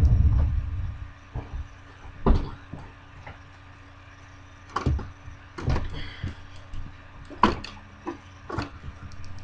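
Handling and knocking noises: a low rumble in the first second, then a handful of scattered short knocks and clicks.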